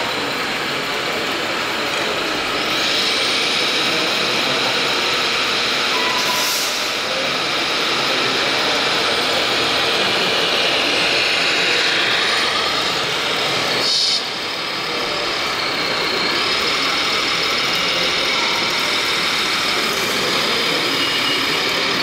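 Steady truck-like diesel running sound from the RC models' electronic sound modules, mixed into the constant noise of a busy exhibition hall. The sound changes abruptly about fourteen seconds in.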